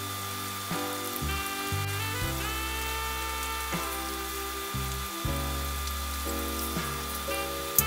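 Breaded chicken pieces deep-frying in hot oil in an electric deep fryer, with a steady sizzle, under background music of held notes. There is a sharp click near the end.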